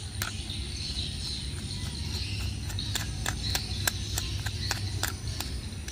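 Small screwdriver working a stiff screw in a plastic toy train's battery compartment: scattered light clicks and scrapes of metal on plastic. Insects chirp steadily in the background.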